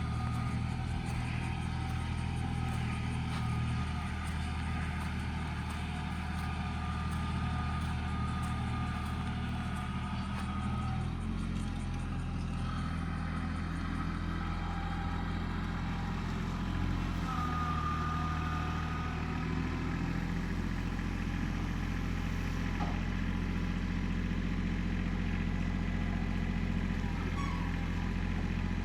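A vehicle engine running steadily, its low note shifting slightly about eleven seconds in.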